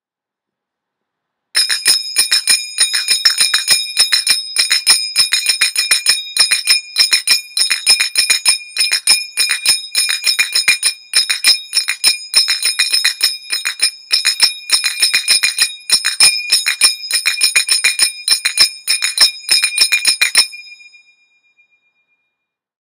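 Finger cymbals (zills) played in the military 3-3-7 pattern at a quicker tempo: a fast, even run of bright metallic strikes with ringing tones. The playing starts about a second and a half in and stops about two seconds before the end, the last ring fading out.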